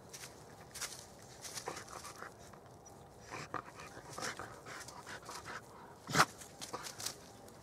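Small knife cutting and scraping into the bark of a birch log in short, irregular strokes, with one sharper click about six seconds in.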